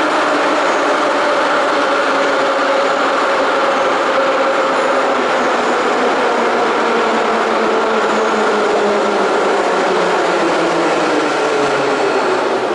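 Soviet 81-717.5M/714.5M "Nomernoy" metro train pulling into the station and slowing to a stop. A loud steady rumble runs with a whine that falls steadily in pitch as the train brakes.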